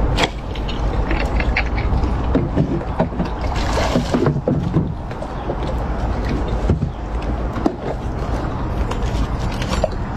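Water splashing and short knocks as a multi-pronged pole spear is jabbed into shallow water and a speared sucker fish is lifted out and shaken off, over a steady low rumble.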